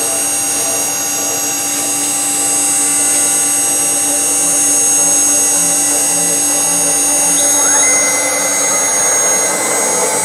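CNC router spindle running with a steady high whine, joined by the hum of the axis stepper motors, whose tones shift as the machine moves; about eight seconds in one tone glides up. The machine is starting a cut into the wood blank at a slow 20% feed rate.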